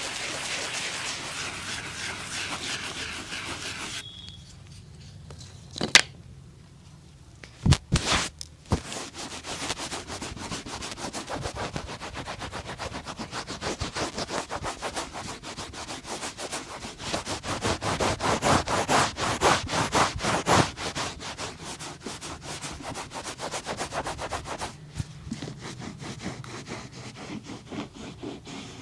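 Hand work on a leather boot: rubbing strokes, then a few sharp knocks. A long run of fast, scratchy scraping strokes follows, loudest in the second half.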